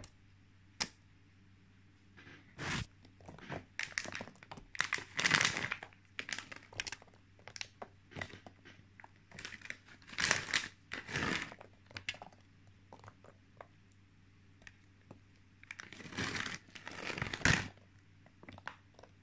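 Crinkling and rustling as raisins are handled and scattered by hand over sliced apples in cake batter, coming in irregular bursts with three louder clusters.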